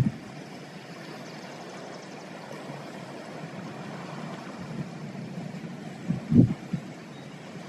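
Steady rushing noise of wind and surf. About six seconds in, a brief gust buffets the microphone with a low rumble.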